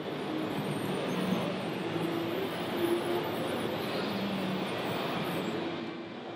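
Steady exhibition-hall background noise, with a faint wavering high whine from the radio-controlled log crane's motor as its grapple lifts a log; the whine stops near the end.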